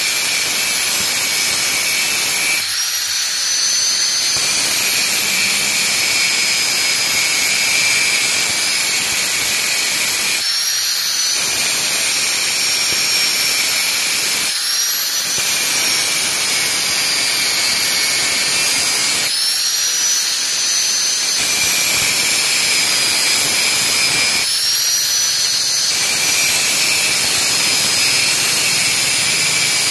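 Electric angle grinder with a cutting disc cutting into a metal motorcycle exhaust pipe, a loud high whine over a harsh grinding hiss. About five times the disc eases off the metal and the whine rises briefly, dropping back as it bites again.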